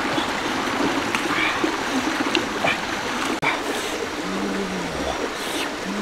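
Shallow rocky stream flowing, a steady rush of running water. A short low murmured voice sound comes about four and a half seconds in.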